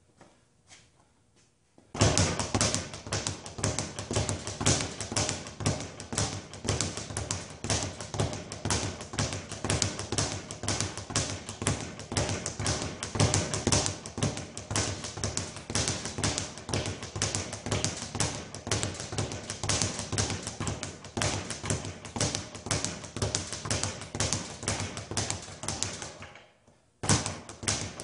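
Speed bag being punched with wrapped hands, the bag rebounding off its platform in a rapid, even rattle of impacts. It starts about two seconds in, breaks off briefly near the end, then picks up again.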